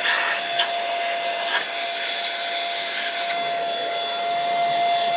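Cordless handheld vacuum cleaner running, fitted with its blower attachment: a steady motor whine over a rush of air, with a couple of light taps early on.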